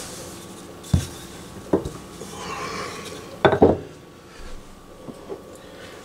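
Wooden rolling pin rolling over pie dough and knocking against the countertop: single knocks at about one and two seconds in, a rubbing hiss, then a loud cluster of knocks about three and a half seconds in as the pin is set down.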